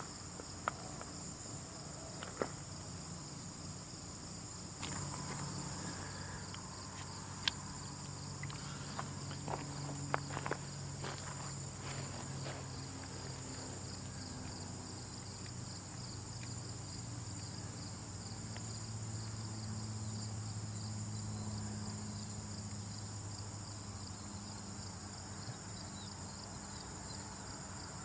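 Steady high insect chirring, like a cricket chorus, with scattered small sharp clicks and ticks over the first half and a low hum underneath.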